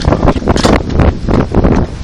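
Wind buffeting the microphone in irregular, rumbling gusts.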